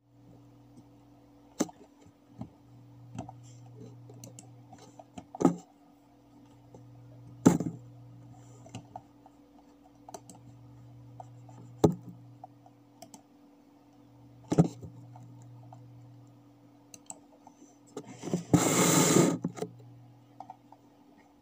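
Computer mouse clicking: a handful of sharp single clicks a few seconds apart, over a faint low steady hum. Near the end there is a louder burst of noise about a second long.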